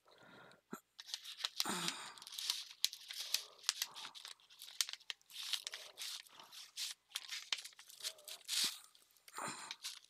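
Crinkling and rustling of plastic packets and a translucent paper pocket as craft embellishments are handled and pushed into a journal pocket, with sharp irregular crackles and short rustles coming in uneven spells.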